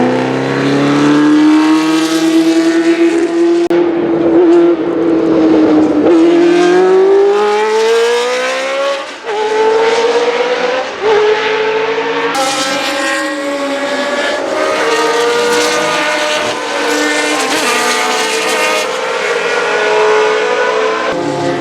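Cosworth DFV 3.0-litre V8 of an Arrows A4 Formula 1 car running at high revs under acceleration. Its pitch climbs and drops sharply at upshifts about 9 and 11 seconds in, then holds fairly steady.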